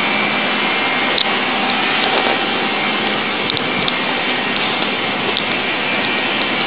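Steady, loud rushing hiss with no clear pitch, with a few faint ticks scattered through it.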